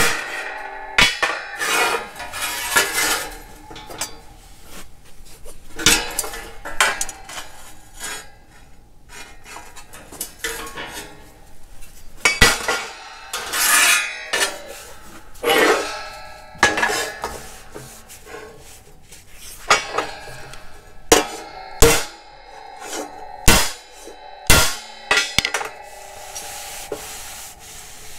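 Steel tractor grille panel being hammered and handled on a steel table: scattered sharp metal blows and clanks, a second or several apart, with scraping of metal on metal between them, as the dents are worked out. Near the end a gloved hand rubs across the panel.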